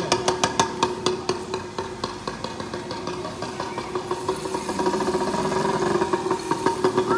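Small motorbike engine running with a fast, even putter. It dips a little about two seconds in, then builds again.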